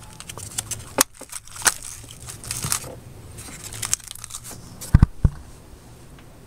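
Irregular clicks and scrapes of hand tools being worked around the intake manifold bolts, with a 12 mm socket on an extension. There is a sharp click about a second in and two low thumps close together about five seconds in.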